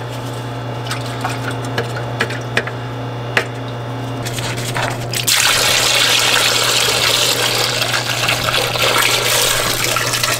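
Diesel and loosened old sludge draining in a steady stream from the rear-end drain hole of a John Deere BO tractor into a plastic drain pan, starting suddenly about five seconds in. Before it, a steady low hum and a few faint taps.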